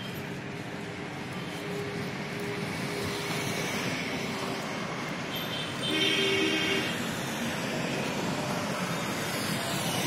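Road traffic noise, with a louder stretch about six seconds in where a short, steady multi-toned sound such as a vehicle horn stands out.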